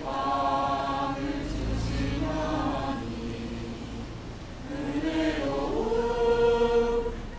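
Church choir and congregation singing together in long held notes; the singing dips in the middle and swells again near the end.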